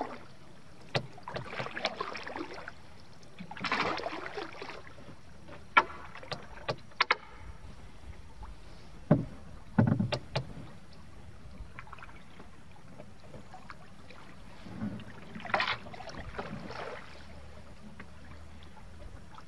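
Canoe on a creek: a few paddle strokes splashing in the water, with scattered sharp knocks on the canoe and a couple of heavier thumps about nine and ten seconds in.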